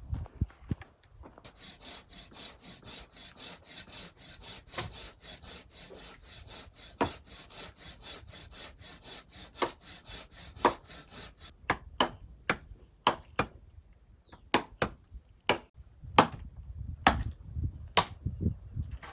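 A rapid, even scraping or sawing rhythm of about five strokes a second, then a long knife chopping into wooden poles, about ten separate sharp chops in the last seven seconds.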